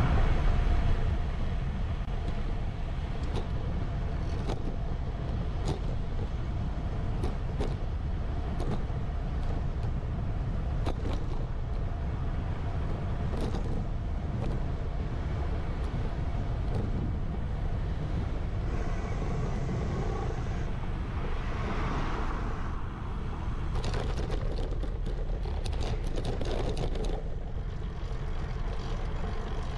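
Road traffic noise over a steady low rumble, with scattered clicks; a louder vehicle goes by about two-thirds of the way through.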